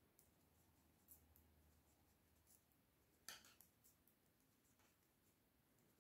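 Near silence with a few faint clicks of knitting needles as stitches are purled, the clearest about halfway through.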